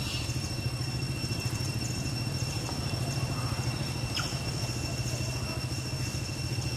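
A steady low mechanical hum, like an engine idling, with two thin, steady high-pitched tones above it.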